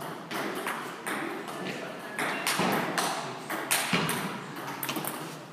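Table tennis rally: a celluloid ball clicking sharply on bats and bouncing on the table, several hits a second at an uneven pace, with voices murmuring behind.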